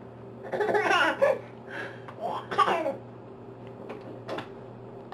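Baby laughing and giggling in a few short, high-pitched bursts, loudest about a second in.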